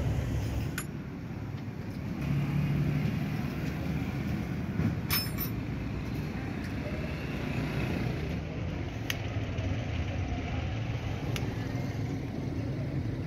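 Small single-cylinder motorcycle engine idling steadily after its cylinder head has been reassembled, with a few light metallic clinks of tools.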